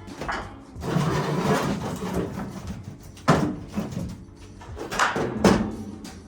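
Metal scraping and clanking as body panels and bolts are worked loose on a 1965 notchback's front end: a long rough scrape, then sharp knocks a little after three seconds and again around five seconds in.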